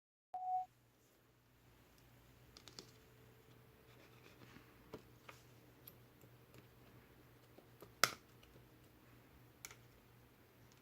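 A short beep at the start, then faint, scattered clicks and taps, one sharper click about eight seconds in, over a low steady hum.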